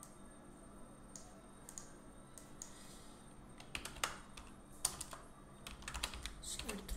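Computer keyboard typing: a few scattered key clicks, then a quicker run of keystrokes in the second half.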